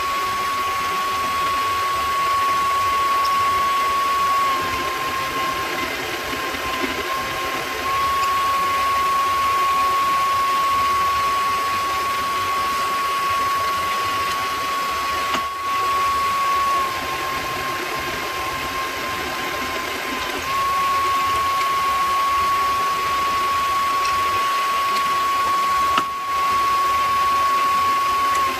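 Mini lathe running with a steady high motor whine while a tailstock drill bores into the spinning workpiece; the whine sags slightly in pitch twice for a few seconds. A single sharp click near the end.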